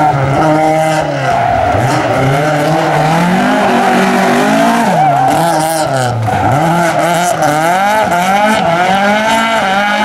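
Opel Kadett C rally car's four-cylinder engine under hard acceleration, its pitch climbing through the gears and dropping sharply on the lifts and shifts, with a deep drop and re-climb as it slides through a hairpin. Tyres scrabble and squeal during the slide.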